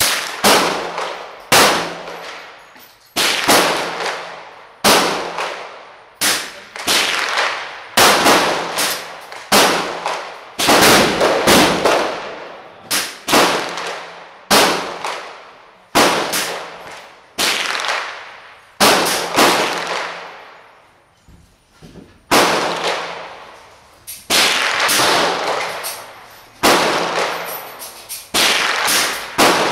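Gunshots fired one after another at a shooting range, at uneven spacing of roughly one to three a second, some in quick pairs, each followed by a long echo. There is a short lull a little past the middle.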